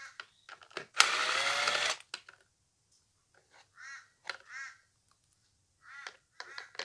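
Cordless drill-driver running for about a second, spinning a screw out of the metal shield over the subwoofer's plate amplifier, its whine rising as it spins up.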